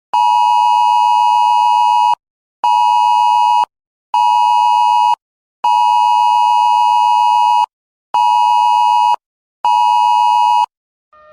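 Loud two-note emergency alert attention tone, the kind used in EAS broadcasts, sounded in pulses: one long tone and two short ones, repeated twice.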